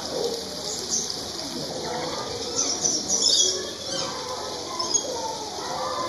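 Aviary birds chirping, with a flurry of high calls about halfway through, over the steady splashing of a small waterfall into a pond.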